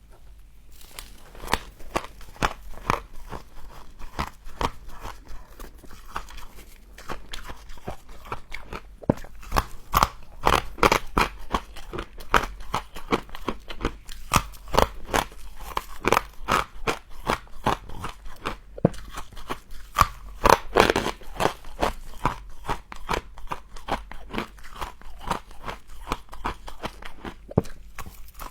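Close-up crunching and chewing of frost, many quick irregular crunches in a row.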